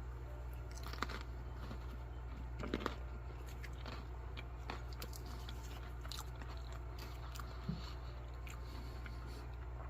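Faint chewing of food in the mouth, with a few soft clicks here and there, over a steady low hum.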